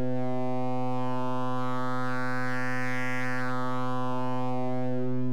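Synthesizer oscillator tone passed through a Make Noise Maths channel used as a filter with cycle mode on, giving a buzzy, resonant-sounding steady pitch. Its bright upper overtones swell up toward the middle and fade back down.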